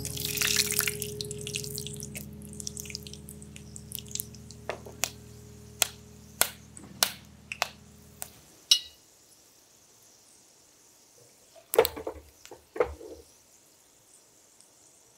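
Whole spices (black peppercorns, cloves, bay leaves and a cinnamon stick) frying in hot oil in a saucepan: a brief sizzle as the peppercorns drop in, then scattered sharp pops and crackles, with a faint steady sizzle.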